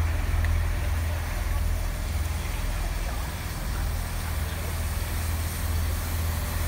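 Bulleid West Country class steam locomotive 34046 Braunton beside the platform, with a steady low rumble under a general hiss of noise.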